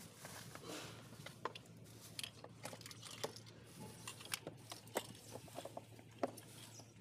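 Scattered small clicks, ticks and scrapes of hard plastic as a screwdriver works at the body panels of a kids' electric ride-on toy car, with no steady rhythm.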